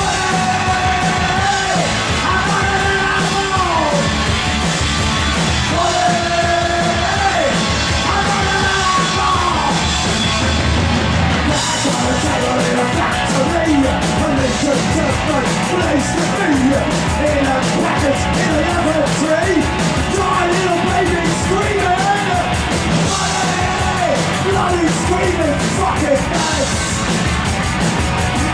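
A rock band playing live: a male singer belting long, gliding notes over electric guitar. About eleven seconds in the accompaniment turns busier and brighter, with dense rhythmic strokes under the vocal.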